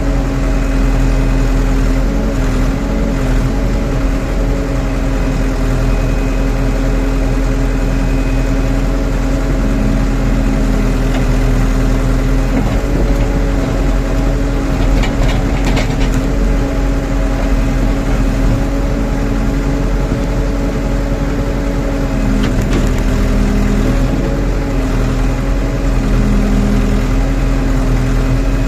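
Rondon backhoe loader's diesel engine running steadily, with small shifts in pitch as it works.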